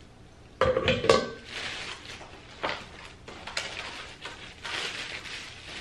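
Rachael Ray metal baking pans clattering together as one is set down, a loud ringing clank about half a second in, followed by plastic wrapping crinkling as the next pan is unwrapped.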